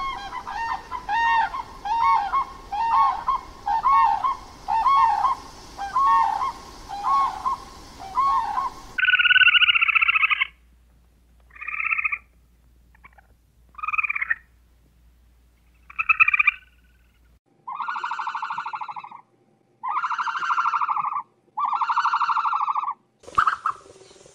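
Animal calls in two stretches. First comes a quick run of short calls that rise and fall, about one and a half a second. After a cut about nine seconds in, there are fewer, longer and louder calls, roughly one every two seconds.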